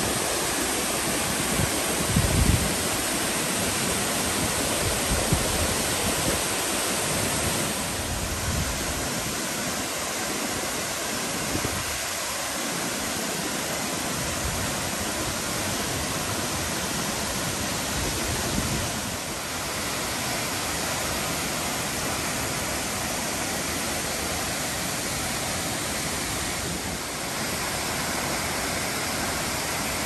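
Waterfall pouring, heard close up at its foot: a dense, steady rush of falling water. A few low thumps stand out about two seconds in.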